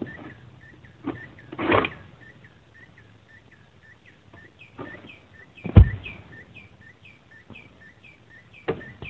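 A small bird repeats a short, downward-hooking chirp about three times a second while an oil palm is being harvested with a long pole sickle: a rustling scrape of cut palm material about two seconds in, and a heavy thud near six seconds as cut material hits the ground.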